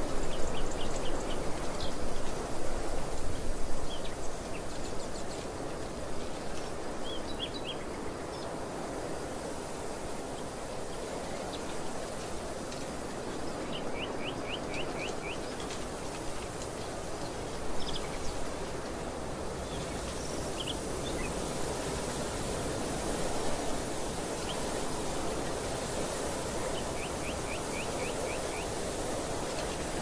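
Wind blowing across an open field, gusting harder for the first few seconds. A small bird calls now and then in short quick runs of high notes, up to five or six at a time.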